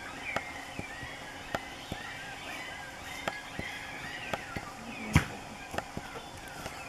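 Irregular footsteps and crackling in dry grass and undergrowth, with a sharper crack about five seconds in, over a background of short, repeated chirps.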